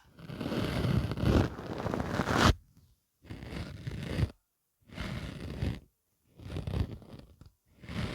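A soft fluffy pompom brushed over the microphone in five slow passes, the first the longest, each a rustling, scratchy swish with a low rumble.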